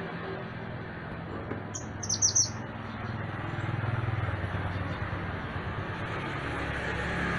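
Mantenan gunung bird giving a short, quick run of high chirps about two seconds in, with a single chirp at the start, over a steady low background hum.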